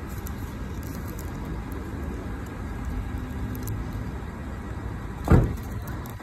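Steady low outdoor rumble with faint crinkling of a thin plastic bottle label being peeled and unwrapped by hand. A single brief thump about five seconds in is the loudest sound.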